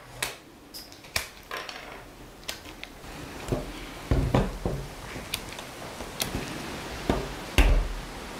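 Garden secateurs snipping off willow rod ends to trim a freshly woven basket: about a dozen sharp snips at irregular intervals, with a few dull knocks from the basket on the wooden table.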